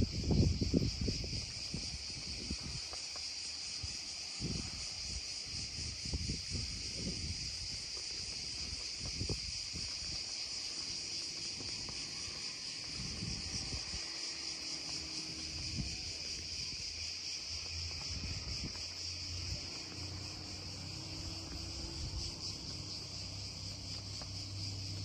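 Steady, high-pitched chorus of insects. In the first several seconds, gusts of wind buffet the microphone. A faint low hum joins in the second half.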